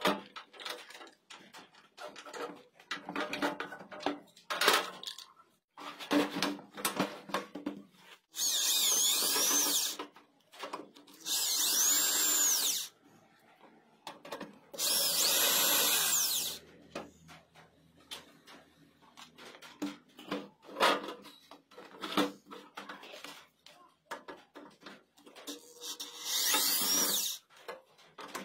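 Power drill with a screwdriver bit running in four short bursts of a second or two, its whine rising and falling in pitch as it backs out the screws of an inverter welder's sheet-metal cover. Light clicks and knocks of handling come between the bursts.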